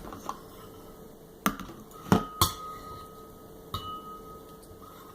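A mixing utensil clinking against a bowl as slime is stirred: about five sharp clinks spread out, a couple leaving a brief ring.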